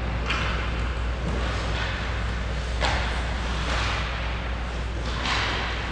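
Hockey skate blades scraping and carving on the ice, several short hissing scrapes a second or two apart, over a steady low hum.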